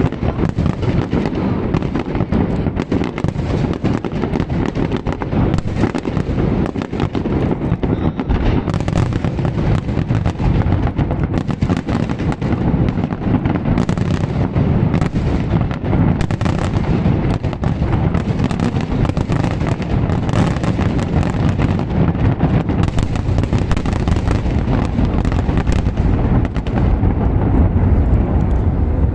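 Fireworks display going off continuously: a dense, unbroken rumble of bursting shells, with many sharp crackles and pops on top.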